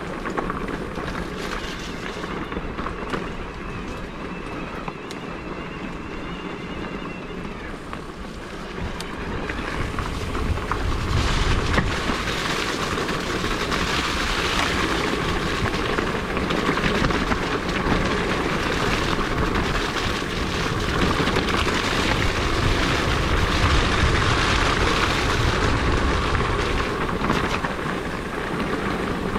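Wind buffeting the microphone and tyres rolling on a wet track as an electric mountain bike is ridden, with a faint high whine early on. The noise grows louder about ten seconds in as the bike speeds up.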